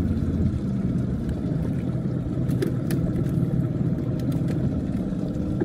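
Small boat's engine running steadily, a low even drone, with a few light clicks partway through.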